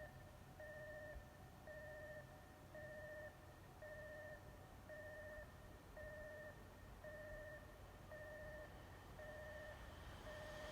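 Railway level crossing warning bell ringing: a repeating electronic tone, about one ring a second, warning of an approaching train. Near the end the noise of the oncoming train begins to rise under it.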